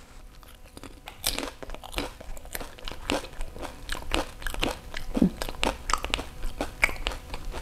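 A whole pani puri being chewed: the crisp fried puri shell crunching and crackling in irregular bites, a few a second, starting about a second in.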